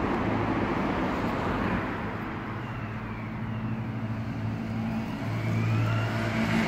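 An engine running with a steady low hum over a haze of noise, dipping in the middle and growing louder near the end.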